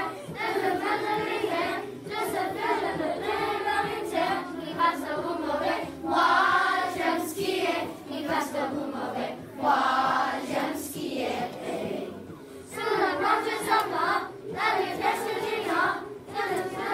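A class of children singing a song together in phrases.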